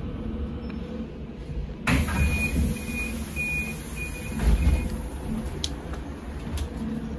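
Interior of a Sinara-6254 trolleybus: a low steady rumble, then about two seconds in five short high beeps about half a second apart, typical of a door warning signal, with a heavy thump as the beeps end.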